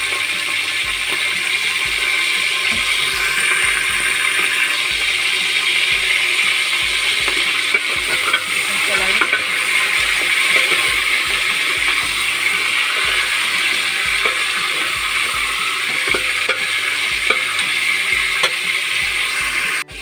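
Bone-in mutton pieces sizzling loudly in hot oil in a metal pressure cooker, stirred with a ladle that clicks and scrapes against the pot now and then.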